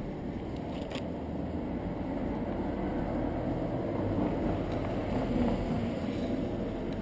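Steady, muffled low rumble picked up by a camera strapped to a dog's back, a blend of nearby street traffic and the camera rubbing and jostling as the dog moves. There is a small click about a second in.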